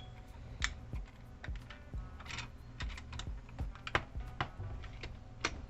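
Keys of an Ajazz AK510 mechanical keyboard pressed one at a time, a dozen or so separate, unevenly spaced clacks, some with a faint short ring after them, as the newly fitted keycaps are tried out.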